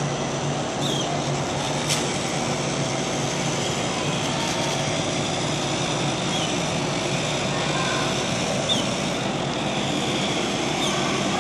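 Small DC motors in a Tamiya gearbox driving a line-following robot's wheels: a steady mechanical whir.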